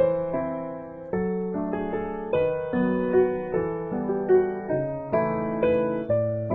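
Background music: soft piano playing a slow melody with chords, one note after another, each fading before the next.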